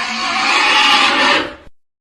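Cartoon Tyrannosaurus roar sound effect, a harsh, raspy cry that swells slightly and then fades out about one and a half seconds in.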